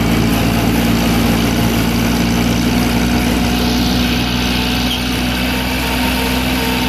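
John Deere 322 garden tractor's liquid-cooled 18 hp three-cylinder Yanmar gasoline engine running steadily at low throttle while the tractor drives along.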